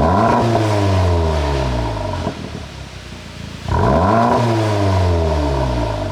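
2016 VW Golf R Mk7's 2.0 TSI turbocharged four-cylinder revved twice, about three and a half seconds apart: each time the revs climb sharply and then fall back over about two seconds. On each fall the exhaust crackles and pops on the overrun, the effect of its pop-and-crackle tune.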